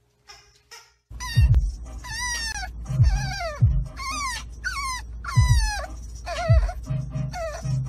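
French bulldog puppy whining: a quick run of high cries, each sliding down in pitch, starting about a second in, over the steady low rumble of the car.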